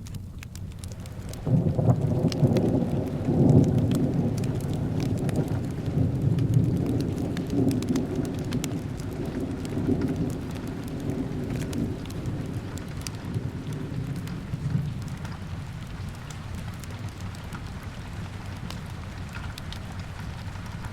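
Steady rain with a roll of thunder that breaks in suddenly about a second and a half in, then rumbles and slowly fades away. A fire crackles faintly throughout.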